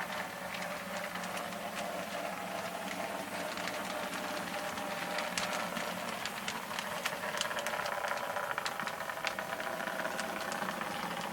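HO scale model train running on track: a steady electric motor hum with scattered clicks and rattles from the wheels and rolling stock.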